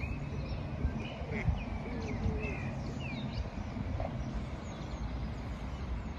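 Small birds chirping and twittering, many short calls, over a steady low background rumble.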